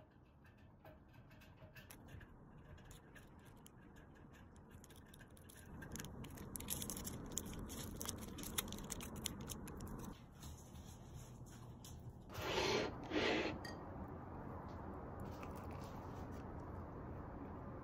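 A small plastic jam sachet crinkling and rubbing as it is handled and squeezed out onto a slice of bread. About twelve and thirteen seconds in come two short, louder noises.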